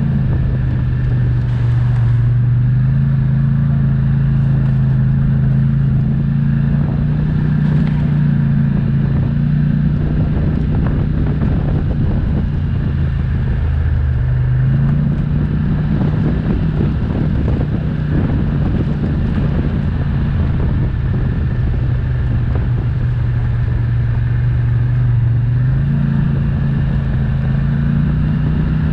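ATV engine running steadily under way, its pitch stepping up about two seconds in, dipping and rising again around the middle, and rising once more near the end as engine speed changes.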